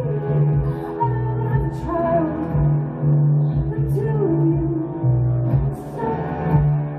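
A woman singing live while playing electric guitar, over a low sustained bass line and a steady beat.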